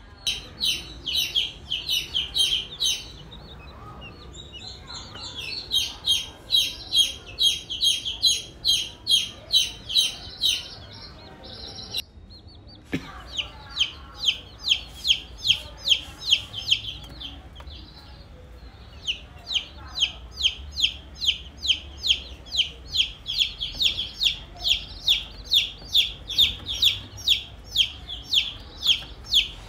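Baby chicks peeping: short, high-pitched peeps repeated about three times a second, in runs broken by short pauses.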